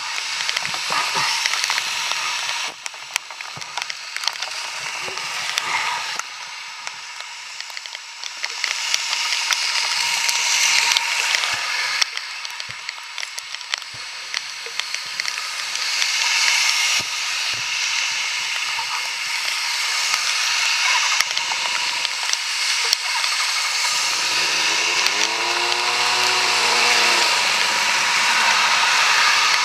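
Steady hiss of heavy rain with scattered taps and clicks. About 24 s in an engine starts up, its pitch rising and falling in a few revs.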